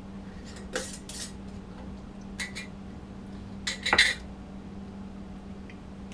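A glass mason jar and a ceramic bowl being handled: a few light clinks and taps, the loudest about four seconds in, over a steady low hum.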